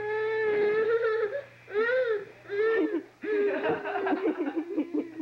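A baby crying: a long held wail, then two short arching cries about two seconds in, then a longer wavering cry.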